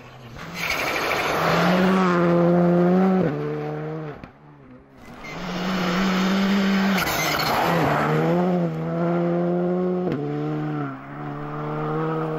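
Rally car engines at high revs passing at speed, one car after another, with several quick gear changes. Each pass rises loud and fades, with a dip between them about four seconds in.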